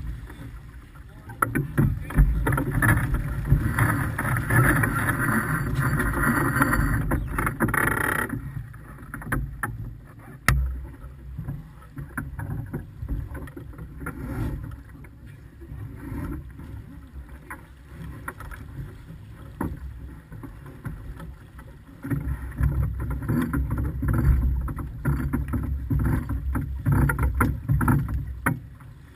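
Wind buffeting the microphone and water rushing along the hull of a sailing yacht under way. The noise is loud for the first eight seconds or so, eases off through the middle and picks up again for the last several seconds.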